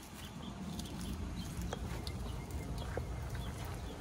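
Chickens clucking faintly in the background over a steady low outdoor rumble.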